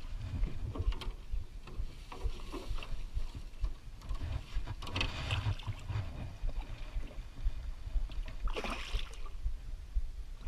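Knocks and scrapes of feet and gear inside a small aluminium jon boat, over a steady low rumble, with two brief noisy rushes about five and nine seconds in.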